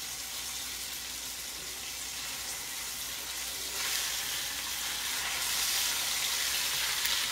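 Beef chuck roast sizzling as it sears in hot olive oil in a Dutch oven. The sizzle grows louder about four seconds in.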